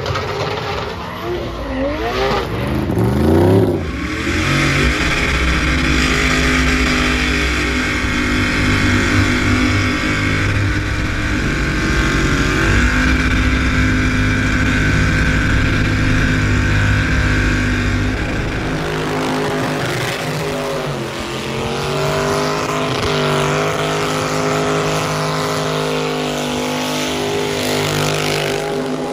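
Burnouts: engines revved hard and held at high rpm while the tyres spin and squeal. The revs climb in the first few seconds, hold for a long stretch, then drop and pick up again unevenly in a different clip about two-thirds in.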